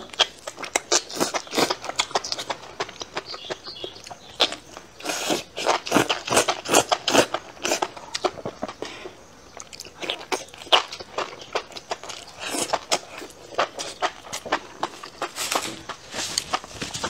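A person chewing a mouthful of spicy enoki mushrooms close to a clip-on microphone: a fast, irregular run of wet mouth clicks and smacks.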